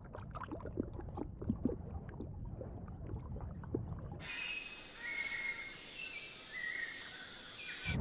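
Faint background ambience: a low, muffled rumble with scattered small clicks that cuts abruptly about four seconds in to a high, even hiss with a few short whistle-like tones.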